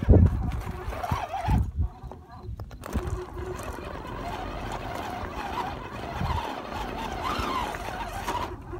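Small electric motor and gearbox of a scale RC rock crawler whining, the pitch rising and falling with the throttle, after a few low knocks in the first two seconds.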